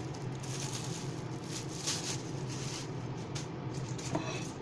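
Soft, faint squishing and handling noises of chopped aromatics being mashed and mixed by gloved hands in a bowl, over a steady low hum.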